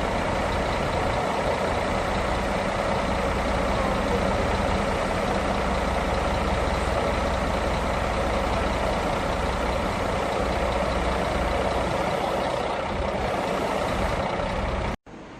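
An engine running steadily at a low idle, with a low hum under it; it cuts off suddenly near the end.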